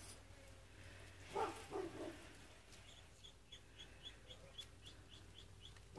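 Three short low calls about a second and a half in, then a small bird repeating one high chirp about four times a second for nearly three seconds.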